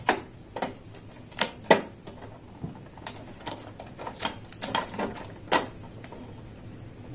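Irregular light clicks and taps of plastic as fingers handle and tug the red packing tape on the front of an inkjet printer, about a dozen sharp ticks spread unevenly.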